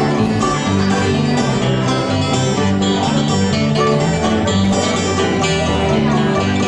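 Live band playing an instrumental passage of a song, led by plucked string instruments, with no singing.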